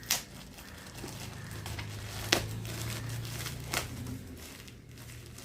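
Parcel packaging being handled and opened: crinkling and rustling with three sharp snaps, one near the start, one a little past two seconds in and one near four seconds. A low steady hum sits underneath for most of it.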